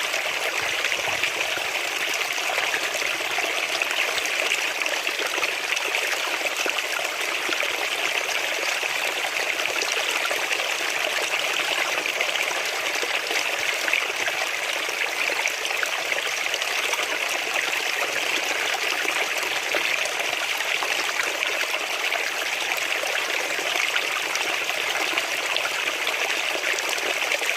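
River water running over rocks: a steady rushing and trickling of flowing water.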